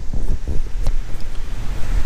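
Wind buffeting the microphone in a moving vehicle, a loud, uneven low rumble, with a sharp click a little under a second in.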